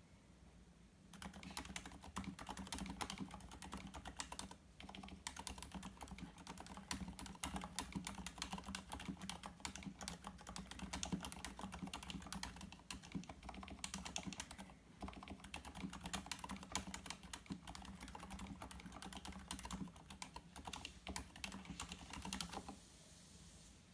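Typing on a Varmilo VA87Mac tenkeyless mechanical keyboard with rubber-dampened Cherry MX Silent Red linear switches: a fast, continuous run of keystrokes. It starts about a second in, pauses briefly twice, and stops shortly before the end.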